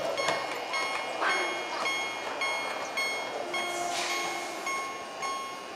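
Railway level-crossing signal ringing its warning bell with its red lamp lit, a steady repeated ding-ding that keeps on throughout.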